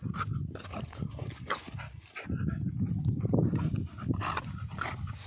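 Two bulldog-type dogs play-fighting, growling and grunting as they wrestle, louder from about two seconds in.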